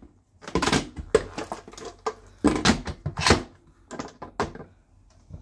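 Pressure cooker lid scraping and clicking against the pot's rim as it is twisted shut and locked, in four short bursts.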